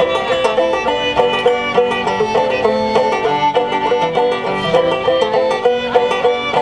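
Banjo and fiddle playing an instrumental break of an old-time tune: quick plucked banjo notes under the fiddle's bowed melody.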